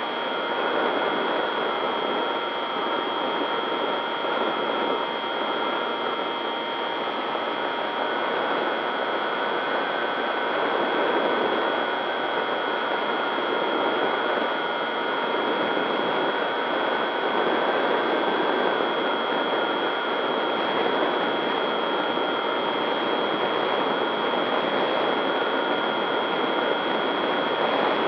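Electric RC plane's motor and propeller whining steadily in flight over a constant rush of noise, the whine drifting slightly up and down in pitch with throttle. A steady thin high tone runs underneath.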